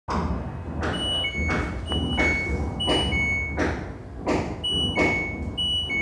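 LG front-load washing machine's error alarm: a two-tone beep, high then low, repeating about once a second, signalling the IE (water inlet) error, meaning the machine is getting no water. Beneath it is a rhythmic whooshing noise.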